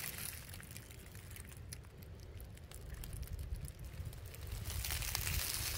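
Footsteps faintly crunching and crackling in dry leaves and twigs on a woodland floor, over a low rumble, growing a little louder near the end.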